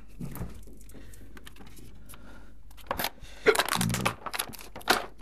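Fridge door opened, then a quiet stretch before the rustling, crinkling and sharp clicks of plastic food packaging being handled, from about three seconds in.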